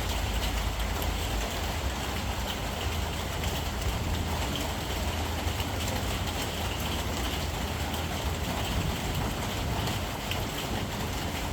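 Steady rain falling, an even hiss with faint patter, over a constant low rumble.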